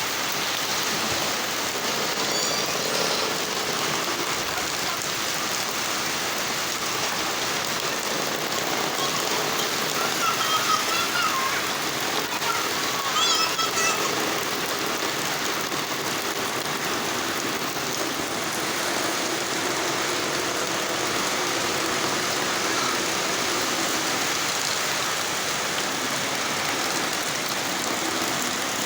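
Steady rain pouring down and splashing on surfaces. Two short, high wavering calls stand out briefly about ten and thirteen seconds in.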